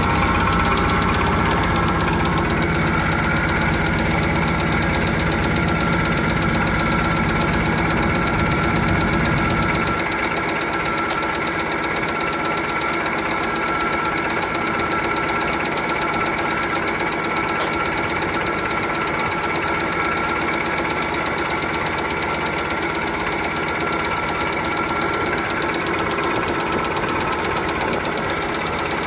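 Mercruiser sterndrive engine idling steadily, running to test the cooling-water pressure of a newly replaced Alpha water pump. Its low rumble drops off about ten seconds in.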